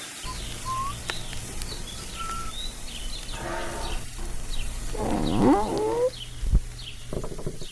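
Birds chirping in short calls over a low steady hum, with a louder pitched sound of rising and falling tones about five seconds in.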